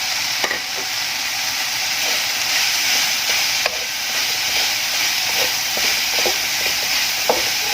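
A stir-fry of papaya flowers with freshly added kencur leaves sizzling in the pan, a steady hiss, while it is stirred, with a spatula clicking against the pan a few times.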